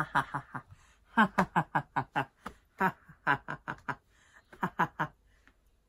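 A man's deliberate, exaggerated laughter: four runs of rapid 'ha ha ha' with short breaks between them, dying away near the end.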